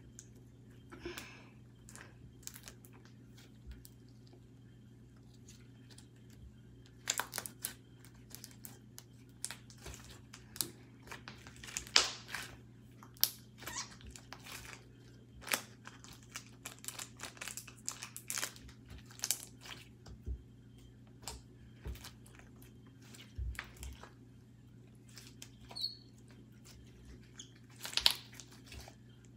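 Slime being kneaded, squeezed and stretched by hand, with clay pieces worked into it, giving irregular sticky clicks and pops.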